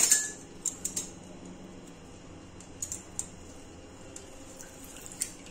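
Hand-held stainless steel lemon squeezer being loaded with a lime half and pressed: scattered light metal clicks and taps, most of them in the first second and one near the end.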